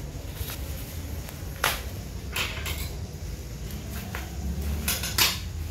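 Black plastic bubble-wrap packaging being pulled and cut open with scissors: rustling and crinkling plastic with a few sharp crackles, the loudest near the end.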